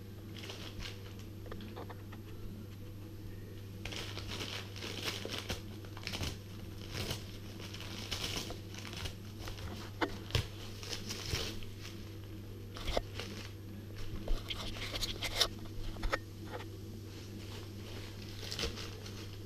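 A small terrier tearing and chewing a crinkly packet: irregular crackling and ripping that gets busier from about four seconds in, with a few sharp snaps near the middle.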